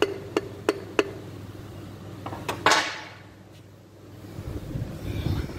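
Hand-tool work on an engine block: a few light metal taps, about three a second, then a metal tool clattering down with a short ringing decay. A low handling rumble comes near the end.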